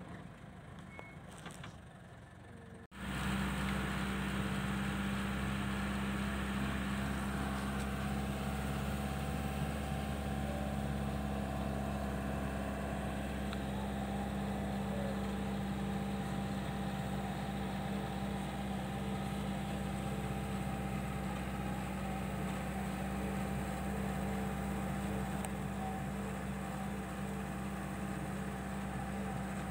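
A vehicle's engine running steadily while driving, with road noise: a steady low drone. It comes in suddenly about three seconds in, after quieter opening seconds.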